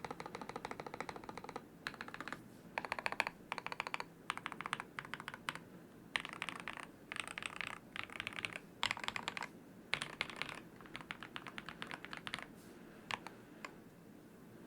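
Custom 75% mechanical keyboard (FEKER AWS84 kit with lubed Akko Rose Red linear switches and foam mods) being typed on in quick runs of keystrokes separated by short pauses, ending with a few single key presses.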